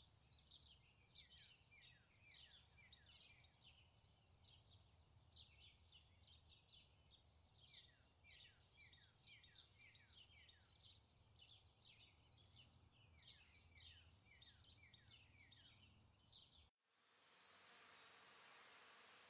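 Near silence, with faint birdsong in the background: quick falling chirps, several a second. They cut off abruptly near the end, and a brief faint sound and a thin steady hiss follow.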